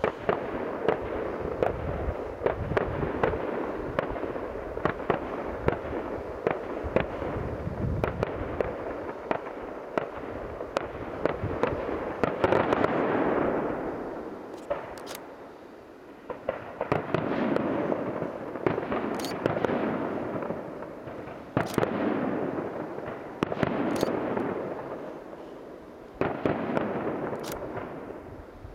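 Professional fireworks display: a steady run of sharp bangs from bursting shells. In the second half, waves of rushing noise swell and fade about every four to five seconds.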